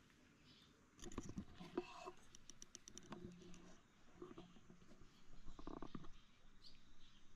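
Faint clicks and rustling starting about a second in, with a quick run of small ticks about two and a half seconds in.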